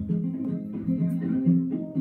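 Guitar music: plucked notes in a steady, repeating melody.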